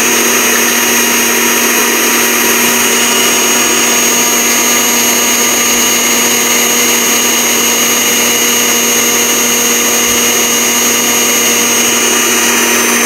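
Countertop blender running steadily at full speed, its blades grinding dry sesame seeds down to a fine powder: a loud, constant motor whine over a steady hum.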